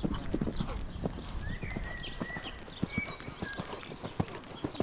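A horse's hoofbeats on sand arena footing: it lands over a jump and canters on in a run of dull thuds.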